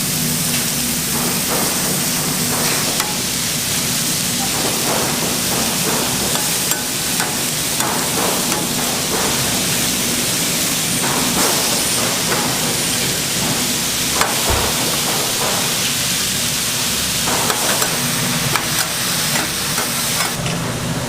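Food sizzling on a hot cooking surface: a steady frying hiss with scattered light clicks and scrapes of utensils.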